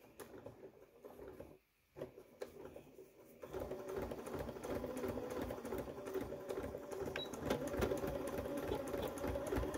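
Domestic electric sewing machine stitching through quilted fabric: after a few quiet seconds it starts up about three and a half seconds in and runs steadily with a fast, even needle rhythm.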